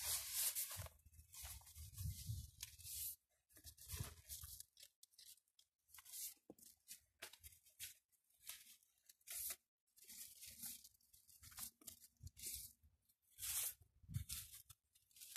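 Long Siberian iris leaves rustling and swishing against each other as they are gathered and braided by hand, in a string of short swishes at irregular intervals.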